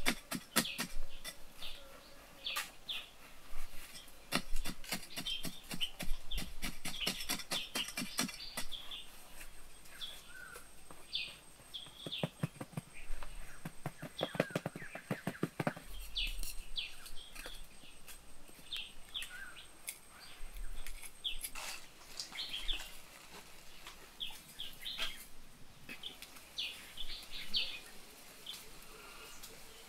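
Birds chirping over quick, repeated scraping strokes in sandy soil as a bamboo stick and bare hands dig and smooth the ground. The scraping comes in runs, busiest in the first several seconds and again about halfway through, while the chirps go on throughout.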